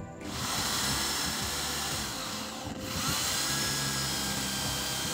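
Electric hand drill boring a hole through a wooden axe handle. It runs steadily, stops briefly about halfway through, then spins back up and keeps drilling.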